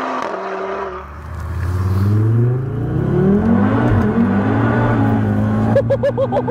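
Turbocharged 2.5-litre five-cylinder RS3 engine in a Golf R under hard acceleration through a straight-through 3-inch exhaust. The revs climb steeply about a second in, dip briefly at quick dual-clutch gear changes, and hold high. A person laughs near the end.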